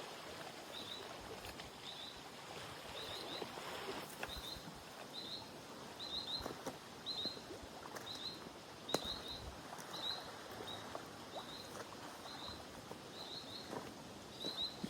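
Faint outdoor background noise with a small animal chirping steadily: short high chirps in twos and threes, about one to two a second. A few light clicks or knocks fall in between, the sharpest about nine seconds in.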